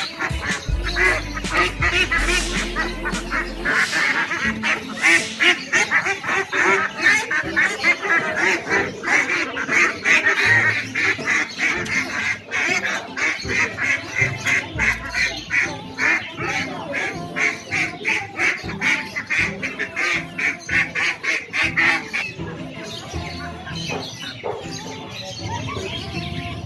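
Many caged birds calling together: a fast, dense chatter of short calls that eases off near the end.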